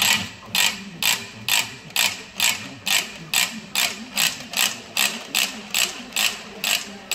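RMS spring cable reel's ratchet pawl clicking as the spring-loaded drum turns and winds cable onto itself: about two sharp, evenly spaced clicks a second.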